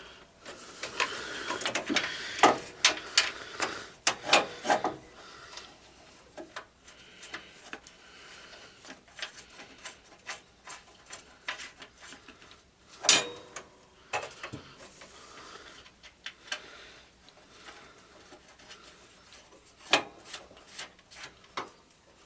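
Hand work on a garden tractor's steering box mounting: scattered metal clicks, clinks and rubbing as bolts and self-tapping screws are handled and fitted, with a few sharper knocks, the loudest about 13 and 20 seconds in.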